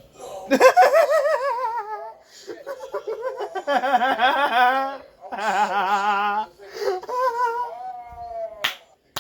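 A person laughing in four long, high-pitched, wavering bursts, with a sharp click near the end.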